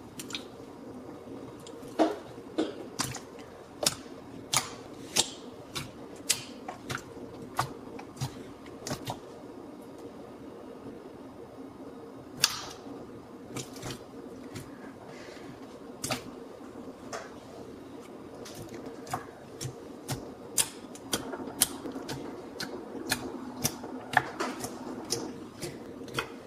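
Clear slime being poked and pressed by fingers, giving irregular sharp clicks and pops, in runs of several close together with a quieter stretch about midway.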